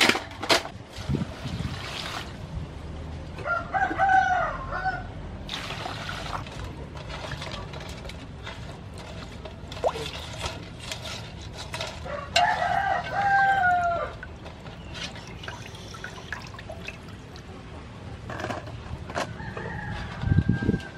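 A rooster crowing three times, each crow a second or two long: about 4 seconds in, about 12 seconds in, and near the end. Between the crows, water splashing and sloshing as hands wash mantis shrimp in an aluminium basin.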